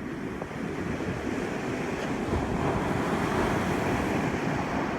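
Ocean surf breaking and rushing up the beach, swelling louder through the middle and easing off near the end, with wind buffeting the microphone.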